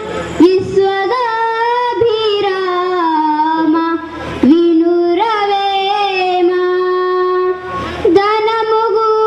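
A young girl singing solo into a microphone, drawing out long held notes in phrases of about four seconds, with a short breath between them.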